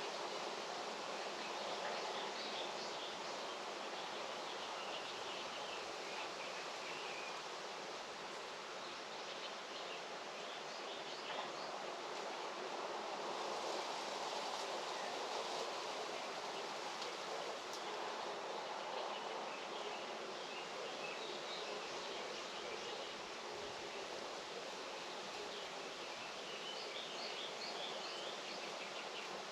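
Steady outdoor ambience: an even rushing hiss with faint, scattered high chirps over it.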